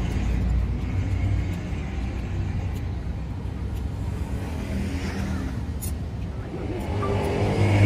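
Low, steady engine rumble that grows louder near the end, with a few faint clicks.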